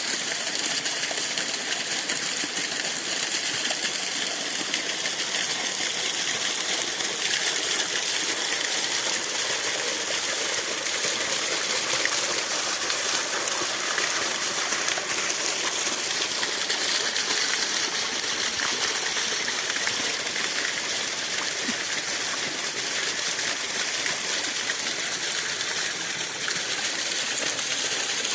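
Small waterfall, about five metres high, pouring and splashing with a steady hiss.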